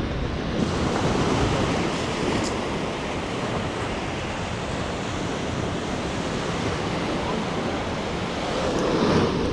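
Ocean surf washing steadily onto a beach, with wind rumbling on the microphone.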